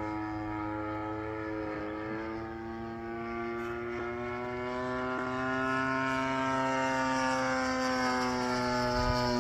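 Factor 3D radio-controlled aerobatic model airplane's engine and propeller droning in flight. The pitch rises slowly through the middle, and the sound grows louder after about five seconds.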